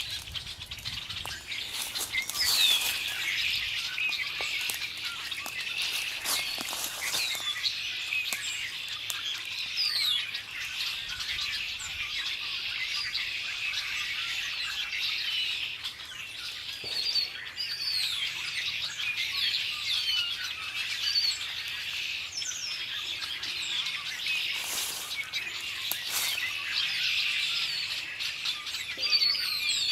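A chorus of red-winged blackbirds calling and singing together, a dense overlapping mix of chirps, whistles and short gliding notes.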